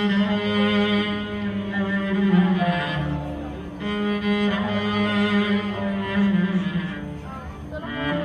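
Solo cello playing a slow melody in long held notes, with a string orchestra's violins accompanying.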